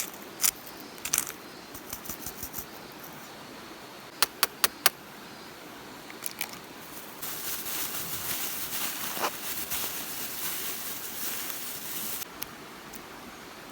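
Sharp clicks and knocks of things being handled, including four quick ones in a row, then about five seconds of steady rustling that stops abruptly.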